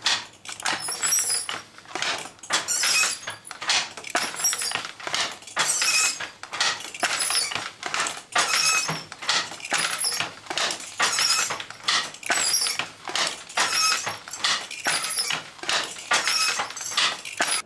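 Traditional hand-operated wooden loom being worked: a rhythmic clatter about once a second as the beater is pulled to pack the weft and the shuttle passes. It cuts off suddenly near the end.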